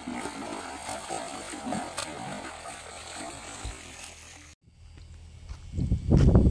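A hooked fish thrashing at the surface of a pond, splashing water as it is pulled in on a rod and line. After a sudden break about four and a half seconds in, louder low rumbling and thumps take over near the end.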